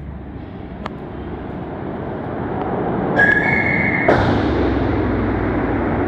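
An object dropped down a deep steel-lined mine shaft, its echoing rumble building up the shaft, with a brief high squeal about three seconds in and a sharp bang just after four seconds that rings on in the shaft.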